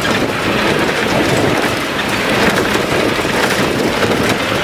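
Safari bus driving along a forest track: steady engine and road noise heard from inside the bus, with a continual patter of small rattles.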